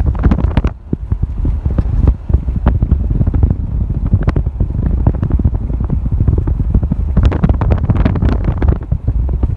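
Car driving over a rough dirt and gravel track, heard from the car: a heavy steady low rumble with wind buffeting the microphone and frequent irregular knocks and rattles from the bumpy surface.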